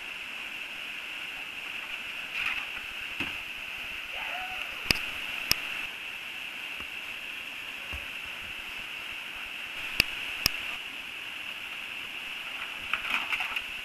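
Steady rushing of a small river waterfall and its whitewater, with two pairs of sharp clicks, about five seconds in and again about ten seconds in.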